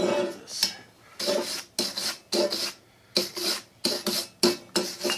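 Steel wire brush scrubbing a fresh weld on steel parts, about ten short scratchy strokes at roughly two a second, cleaning spatter and soot off the weld.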